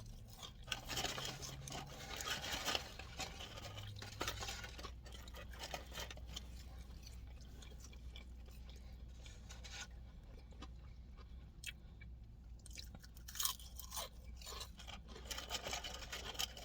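A person chewing Arby's fries close to the microphone: faint, irregular wet mouth clicks and smacks, with a few sharper ticks.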